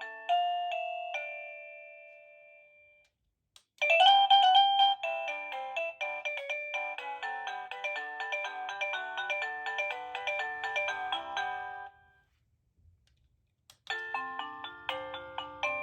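Avantek wireless doorbell chime unit playing its electronic melodies of bell-like notes. One tune dies away over the first few seconds. After a short pause and a faint click, a longer tune plays for about eight seconds, and another tune starts after a click near the end.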